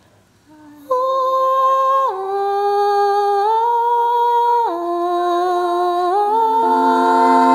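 Wordless vocal toning: a humming, singing voice begins about a second in and holds long notes, stepping to a new pitch every second or so, with lower layered voices joining in near the end.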